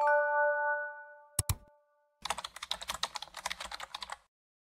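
End-card sound effects: a chime of several tones that fades over about two seconds, a quick double click, then about two seconds of rapid keyboard-typing clicks.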